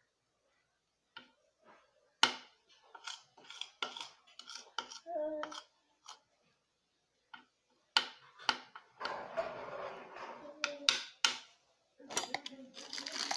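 Spoon clinking and scraping against a bowl while a slime mix is stirred: a run of sharp, irregular knocks, busier near the end.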